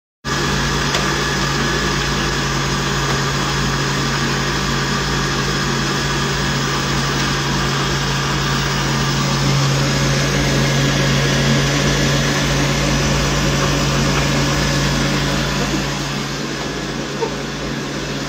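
Countertop blender running steadily, its motor whirring as it blends banana loaf batter; it eases off slightly near the end.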